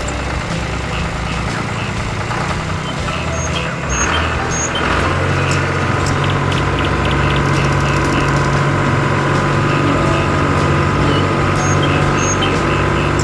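An engine or motor running steadily; about four to five seconds in its note rises and settles into a steadier, higher hum.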